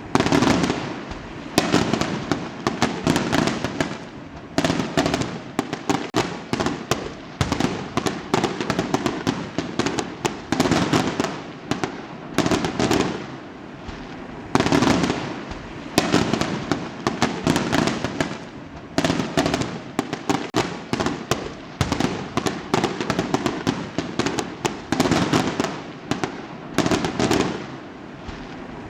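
Fireworks going off: rapid clusters of sharp bangs and crackling in bursts every second or two, with short lulls between them.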